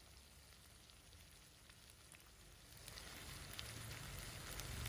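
Faint sizzling of vegetables and spices frying in a wok, with scattered light crackles, growing louder about three seconds in as raw fish pieces are laid into the hot pan.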